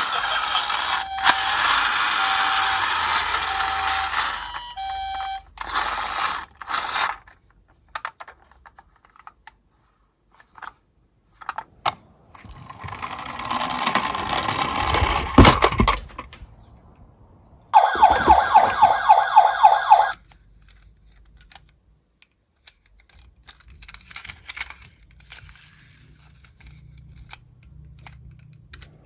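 Tomica die-cast toy cars rolling down a slope with a rushing rattle, plus scattered small clicks and clacks. About eighteen seconds in, a siren-like alarm tone pulses rapidly for about two seconds.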